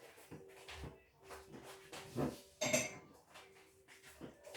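Light clinks and knocks of a stainless steel cup being covered and handled, a handful of small taps spread over a few seconds with the clearest a little under three seconds in.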